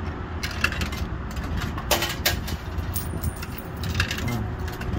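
Coins fed into a Dixie Narco vending machine's coin slot, several sharp clinks as they drop through the coin mechanism, the loudest about two seconds in, over a steady low rumble of traffic.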